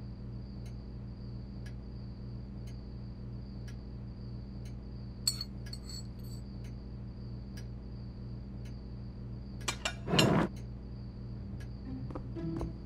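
A spoon clinks against a china plate a few times, with the sharpest strike about a third of the way in. Behind it run a steady low hum and a thin high steady tone. A louder, brief scraping noise comes about ten seconds in.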